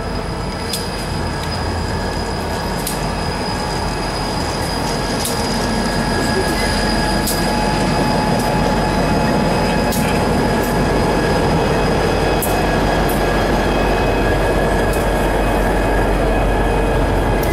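CSX freight train passing close by, diesel locomotives followed by gondola cars. Steady rumble with a high, steady wheel squeal, growing a little louder, and a few scattered sharp clicks.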